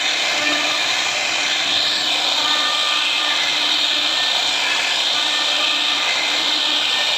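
CNC router spindle cutting wood, a steady, even hiss-like machining noise.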